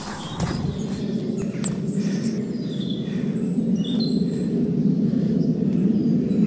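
Small birds chirping in short high notes over a steady low rushing noise that grows gradually louder.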